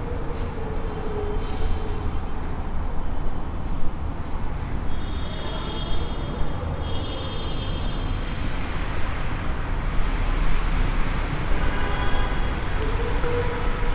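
Steady rumble of road traffic from the busy road beside the underpass, with a faint high tone twice in the middle.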